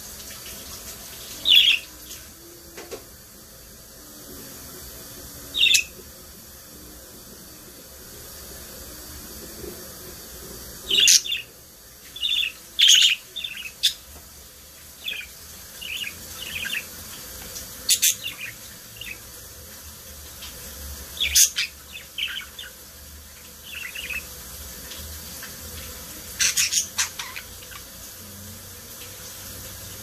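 Budgerigars giving short, sharp chirps, some singly and some in quick clusters of two to four, over a steady hiss.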